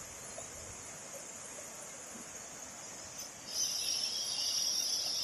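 Insects chirring in a steady high drone over the faint, even rush of a small waterfall; about three and a half seconds in a louder, shimmering insect chorus joins and holds.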